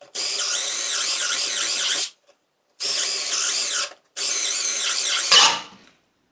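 Parkside Performance PBSPA 12 B2 12 V brushless cordless drill driver running in three short bursts, each stopping abruptly, the last one winding down over about half a second. Its 4 Ah battery is almost exhausted and the drill keeps cutting out.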